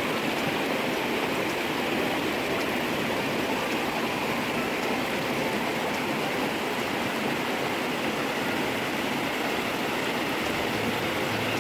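Shallow river water running over flat rock shelves and small riffles: a steady rushing with no change.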